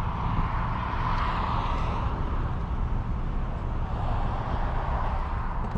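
Steady road and engine noise of a car in motion, heard from inside the cabin: a low rumble with an even hiss.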